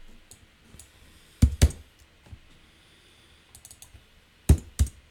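Typing on a computer keyboard: a few light key taps and two pairs of louder key strikes, one pair about a second and a half in and the other near the end.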